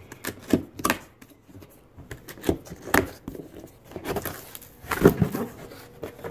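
Cardboard box being opened by hand: the top flaps pulled up and the box handled, making a string of irregular scrapes, taps and rustles.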